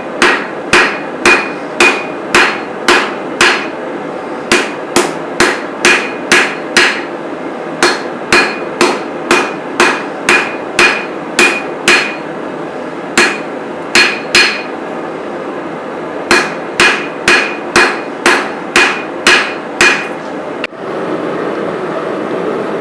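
Hand hammer striking a steel knife blade on an anvil, about two blows a second in runs of several with short breaks between, each blow with a brief metallic ring. The hammering stops about 20 seconds in and a steady rushing noise follows.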